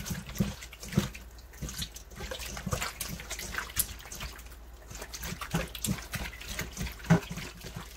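Wet squelching of raw chicken gizzards being kneaded by hand in a stainless steel bowl, coated in a slurry of tapioca starch. Irregular sharp knocks and clicks run through it, the loudest about a second in and another near the end.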